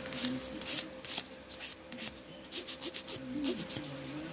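Hand nail file rasping across an acrylic nail in quick, irregular strokes, a few per second, reshaping the nail after the acrylic was applied.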